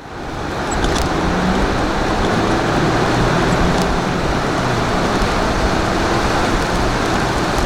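Steady road and engine noise of a vehicle driving, with a low hum under the rush. It fades in over the first second.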